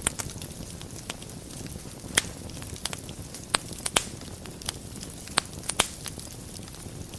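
Wood fire burning in a fireplace: a steady low rumble with irregular sharp crackles and pops, several louder snaps through the middle.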